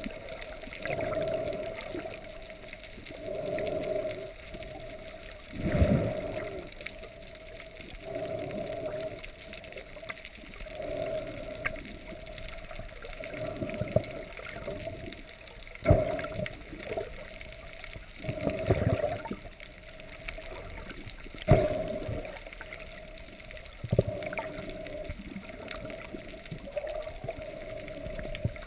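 Muffled underwater water noise against a diving camera's housing as the diver swims down, swelling in repeated surges every couple of seconds, with a few sharp knocks.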